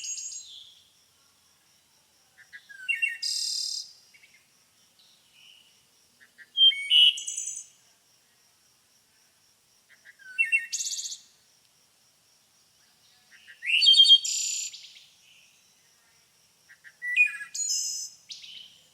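A songbird singing short, high-pitched phrases of chirps and trills, one roughly every three to four seconds, with brief silences between them. A faint, steady high-pitched buzz runs under the song.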